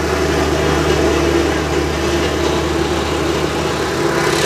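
An engine running steadily with a low, even hum that does not change in speed.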